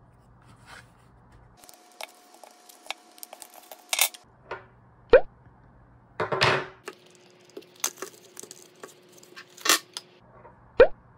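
Glass nail polish bottles and small paperboard boxes being handled on a tabletop: a string of light taps and sharp clinks as bottles are set down, and a brief rustling scrape of a box about six seconds in.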